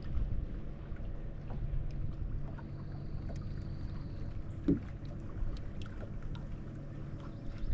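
Bass boat sitting on the lake: a steady low hum with scattered small clicks, a thin high tone for about two seconds near the middle, and a brief low bump near the end.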